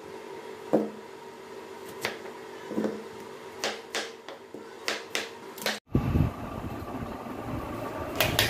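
A kitchen knife cutting watermelon on a plastic cutting board: a string of sharp knocks, irregular, about one every half second to a second, over a steady hum. About six seconds in, the knocks stop and a low rumbling handling noise takes over.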